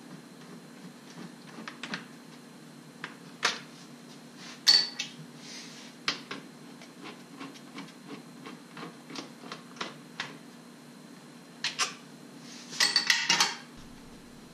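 Ratchet wrench clicking in short irregular runs while 10 mm battery-tray bolts are undone, with sharper metal clinks and a denser clatter near the end.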